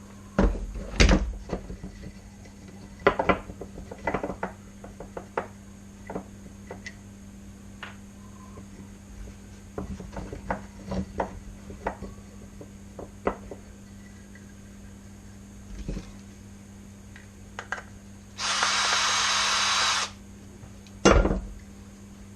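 Oak workpiece and tools being handled on a bench: scattered knocks and clicks of wood on wood. Near the end a steady hissing burst lasts about a second and a half, followed by a loud knock.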